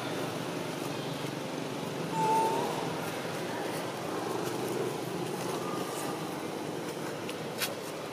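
Steady outdoor background noise like distant traffic, with one brief high squeak about two seconds in and a couple of faint clicks near the end.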